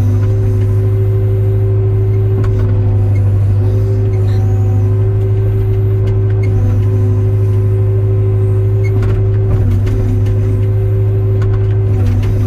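Hyundai 02-class mini excavator's diesel engine running at a steady speed.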